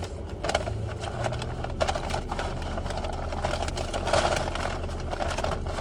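Steady low hum of an idling car engine, under irregular close clicks and crinkling sounds.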